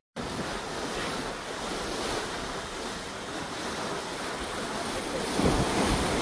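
Wind and water rushing around a sailing ship under way, an even noise of waves and wind, with wind buffeting the microphone more heavily about five and a half seconds in.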